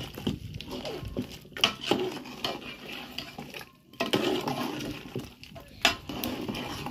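Metal ladle stirring meat in an aluminium pot, scraping along the pot and knocking against its side, with sharp clinks about a second and a half in and near the end.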